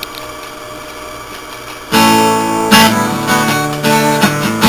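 Guitar music, acoustic guitar strumming: a quieter held sound for the first two seconds, then loud strummed chords come in about two seconds in and change a few times.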